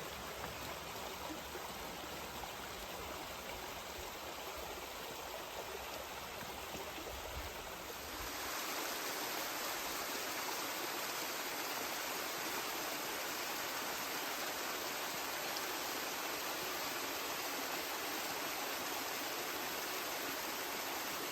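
Mountain stream rushing and splashing over rocks, a steady rush of water that grows louder about eight seconds in.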